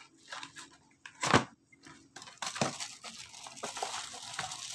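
Packaging of a boxed pop filter being torn open and handled by hand: a sharp rip about a second in, then steady rustling and crinkling of the box and its wrapping from about two seconds in.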